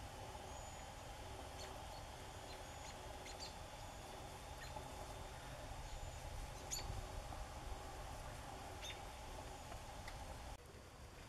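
Scattered short, high, thin call notes and ticks from a flock of American robins feeding on the ground. They sound faint over a steady low background hum.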